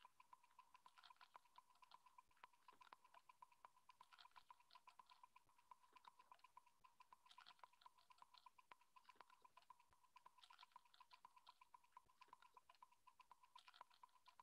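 Near silence: a faint steady high tone, with faint irregular ticks scattered throughout.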